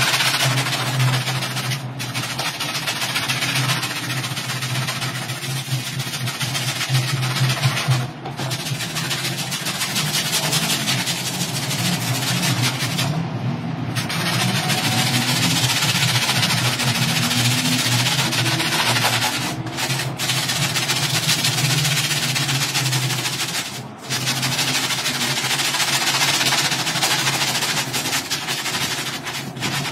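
A stiff hand brush scrubbing a wet, soapy rug: a steady rasping scrub with a few brief pauses. A steady low motor-like hum runs underneath.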